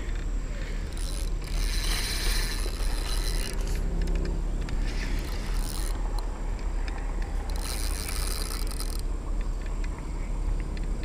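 Fishing reel ratcheting and clicking steadily as a hooked fish is played on the rod.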